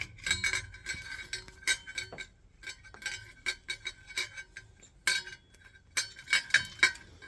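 Irregular metallic clicks and clinks, each with a short bright ring, from metal parts and hand tools being handled and fitted.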